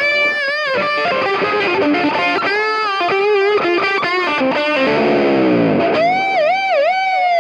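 Distorted electric guitar playing a fast lead line with vibrato. About five seconds in, a cluster of notes slides down in pitch, then a held note dips repeatedly, typical of tremolo-arm work.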